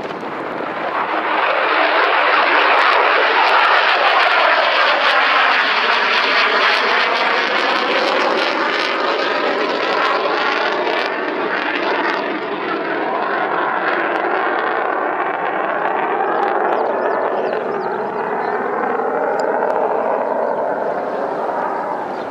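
Jet noise of a Mitsubishi F-2 fighter's single F110 turbofan as the jet climbs away from the runway. It is loud and steady with a slowly shifting, swirling tone, and eases a little near the end.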